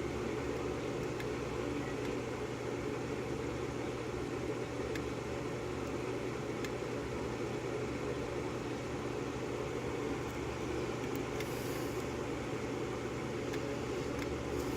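Steady low mechanical hum with a hiss over it, with a few faint ticks scattered through it from a tension wrench and pick working the pins of a DOM euro cylinder held in a vise.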